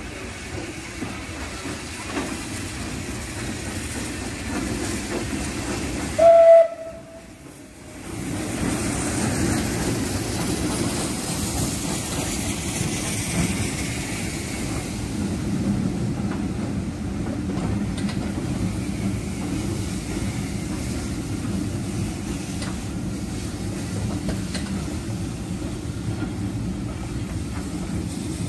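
Steam tank locomotive hauling a train of coaches past: one short whistle blast about six seconds in, then the steady rumble and clatter of the coaches running along the track.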